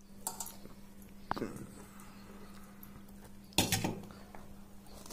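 A few short clinks and knocks of steel bowls and plates being handled while pani puri are filled and dipped, the loudest about three and a half seconds in, over a faint steady hum.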